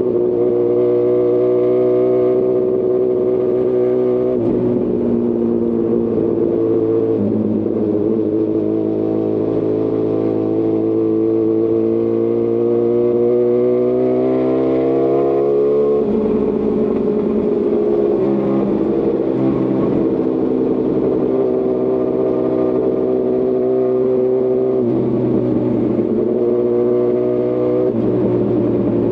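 2018 Honda CB1000R's inline-four engine through a Lextek CP1 full exhaust system, under way. The revs shift a couple of times early on, then climb steadily for about eight seconds before dropping sharply about halfway through. After that the engine runs at fairly even revs.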